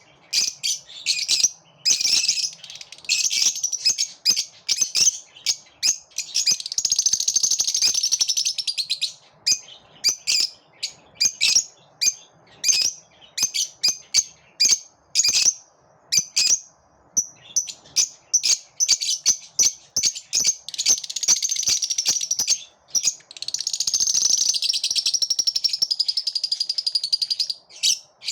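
Several lovebirds chirping and chattering together: shrill, high-pitched chirps in quick runs, with longer stretches of continuous chatter.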